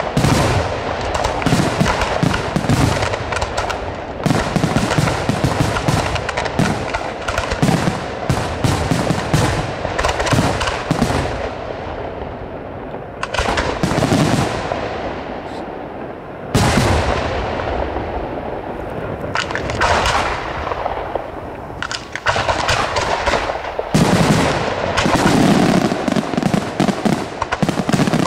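Aerial fireworks shells launching and bursting in rapid, dense volleys with crackling. The volleys are broken by a couple of short lulls, and a sudden loud burst comes about halfway through.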